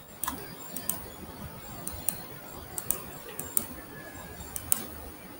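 Computer mouse clicking: a string of sharp, irregular clicks, some in quick pairs, over a faint steady hiss.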